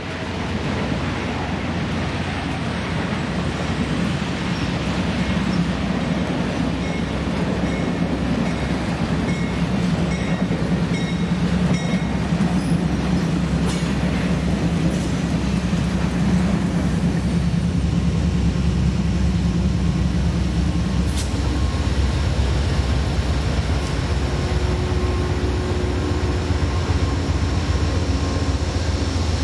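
Union Pacific Big Boy 4014's steam-hauled train rolling past, a steady heavy rumble and clatter of wheels on the rails.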